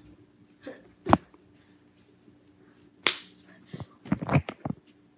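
A few sharp clicks and knocks: one about a second in, a louder one about three seconds in, then a quick cluster near the end, over a faint steady hum.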